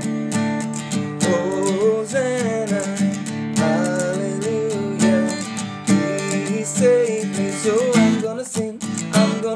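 Upbeat worship song: strummed acoustic guitar with a sung melody on top.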